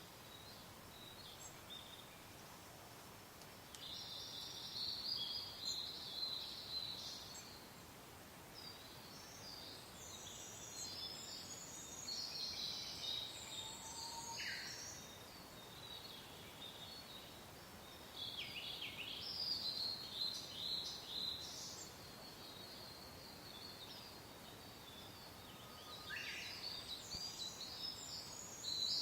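Songbirds singing in bursts of high, rapid chirping phrases, each lasting a few seconds with short pauses between, over a soft, steady wash of wind.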